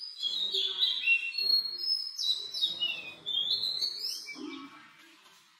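Small birds chirping and twittering in quick rising and falling notes, dying away in the last second or so.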